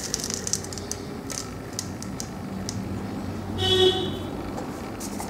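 Fenugreek seeds and a clear plastic jar clicking and rattling as they are handled, then a short horn honk a little past the middle, the loudest sound.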